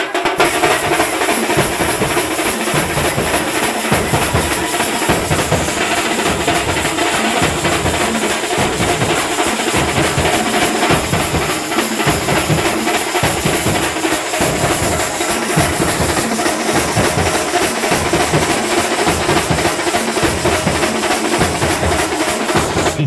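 A troupe of drummers beating large hand-held drums together in a fast, steady, loud rhythm.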